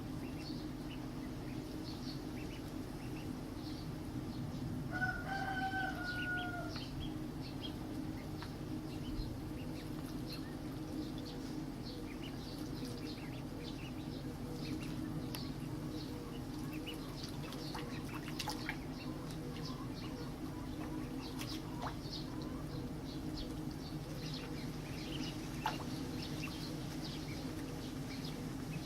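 Little ducks feeding, their bills making many small rapid clicks, with one short pitched call about five seconds in, over a steady low hum.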